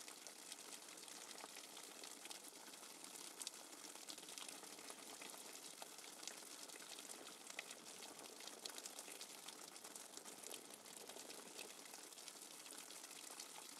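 Faint, steady rain sound effect: an even hiss of falling rain with scattered light ticks of drops.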